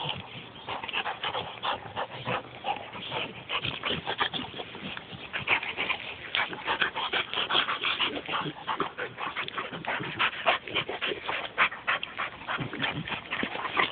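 A pit bull and a St. Bernard play-fighting, with a busy stream of short dog noises and scuffling as they wrestle and mouth at each other.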